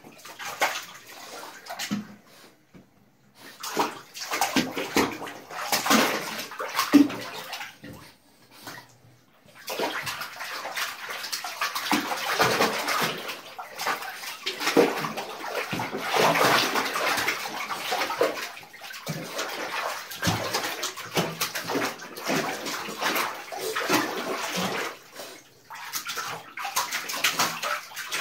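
Bathwater sloshing and splashing irregularly as an English bulldog wades around in a tub. It quiets briefly about two seconds in and again about eight seconds in, then goes on more busily.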